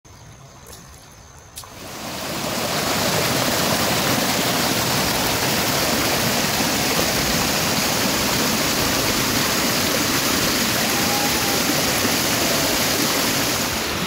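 A waterfall's water rushing steadily, fading in about two seconds in after a quiet start.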